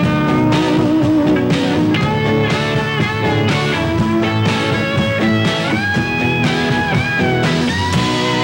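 Rock band playing live: an electric guitar lead line with bent, gliding notes over the band's backing.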